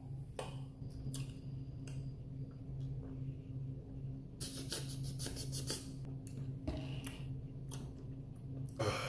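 A person drinking from a plastic tumbler: a quick run of small clicks and rattles about four and a half seconds in, over a steady low room hum.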